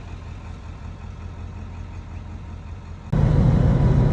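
Truck engine idling with a steady low rumble. About three seconds in it cuts abruptly to a much louder engine rumble.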